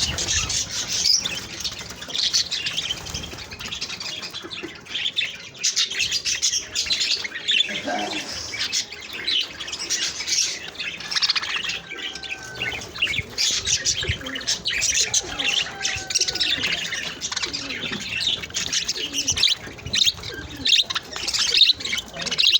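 Many small birds chirping at once in a dense, continuous chatter.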